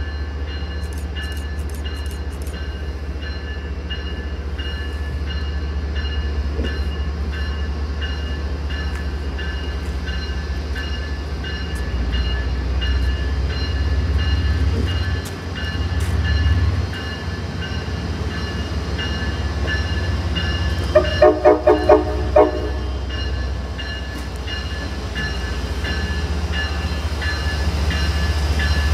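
MBTA commuter rail diesel locomotive rumbling as it pulls its train along the platform, with a quick series of about five short horn blasts a little past two-thirds of the way through.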